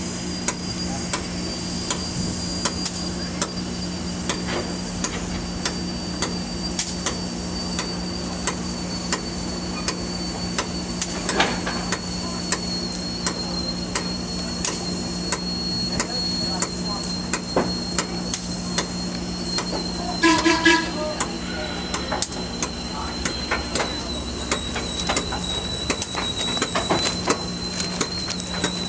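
Norfolk & Western 611, a J Class 4-8-4 steam locomotive, standing under steam: a steady low hum with a thin high whine that slowly sinks in pitch, and many irregular sharp ticks and knocks.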